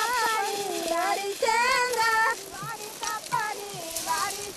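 High-pitched voices singing a melody, louder in the first half and softer after about two and a half seconds.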